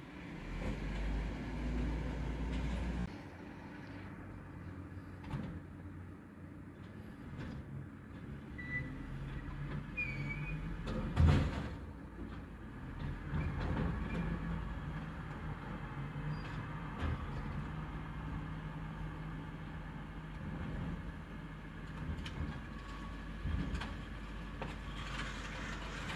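Garwood rear-loader garbage truck running, with a loud bang about eleven seconds in as a wheelie bin is loaded at the rear. Afterwards the engine drones steadily while the hydraulic packer compacts the bags in the hopper.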